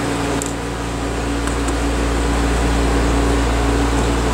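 Steady machine hum with a constant low tone over an even hiss, with a few faint light ticks.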